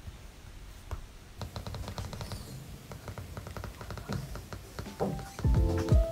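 Apple Pencil tip tapping and clicking on an iPad screen during handwriting: a quick, irregular run of small taps that sounds like a woodpecker, starting about a second and a half in. Music comes in near the end.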